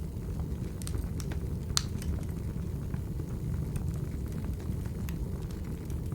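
Wood fire burning in a fireplace: a steady low rumble with scattered sharp crackles, one louder pop a little under two seconds in.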